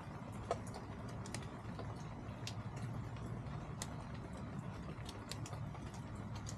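Chickens pecking at feed: scattered, irregular light clicks, a few a second, over a steady low hum.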